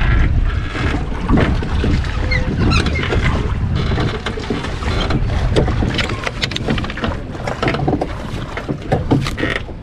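Rowing boat moving on open lake water: wind rumbling on the microphone over water noise, with a run of sharp clicks and knocks from about four seconds in.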